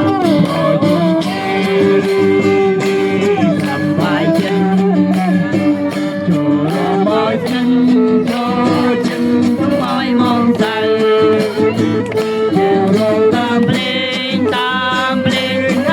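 Music: a voice singing over guitar and a steady beat.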